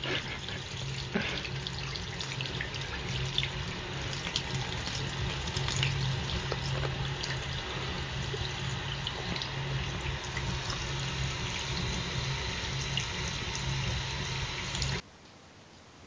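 Tap water running steadily into a sink, with small splashes and a low steady hum underneath. It cuts off abruptly about 15 seconds in, leaving only a faint hiss.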